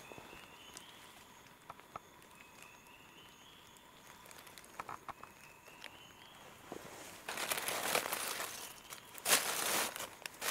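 Dry leaf litter rustling and crackling as the dead birds lying on it are handled, in loud bursts over the last three seconds or so. Before that only faint rising chirps and a few small clicks are heard.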